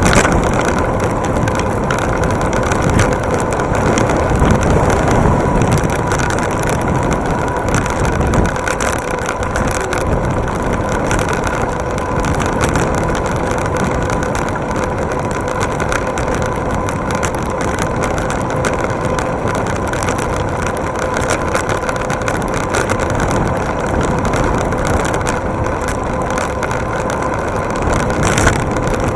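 Electric bike ridden fast on a paved path, heard from a camera mounted on the bike: wind rushing over the microphone and road vibration rattling through the mount, with a faint steady whine underneath.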